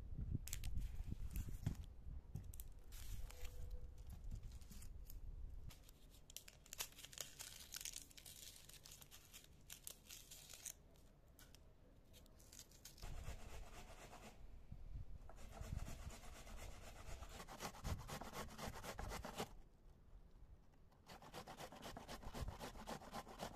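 Papery red onion skin crackling and tearing as it is peeled, then a red onion rasped against a metal hand grater in runs of quick scraping strokes with short pauses between.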